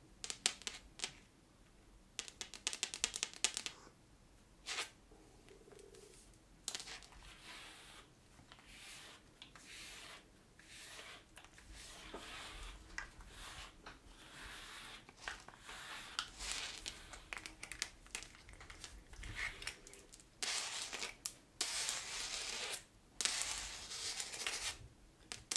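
Scratchy strokes of a slicker brush being drawn through a Maine Coon cat's long fur, loudest near the end. A run of rapid clicks a couple of seconds in is long false nails tapping on the tile floor.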